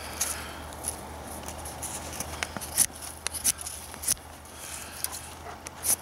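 Knife blade carving a thin wooden stick, a string of short, sharp shaving cuts at uneven intervals.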